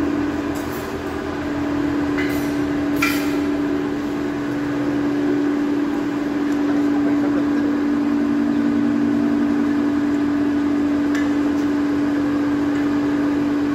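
Steady hum of an electric fan motor with a strong single tone, with a few light metallic clinks.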